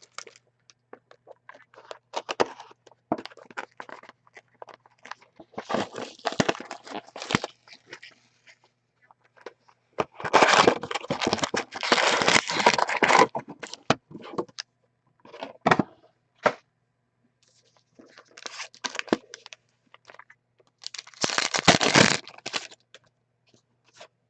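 Plastic card packaging and sleeves crinkling and rustling as trading cards are handled. The rustling comes in irregular bursts, loudest about ten to thirteen seconds in and again around twenty-one seconds.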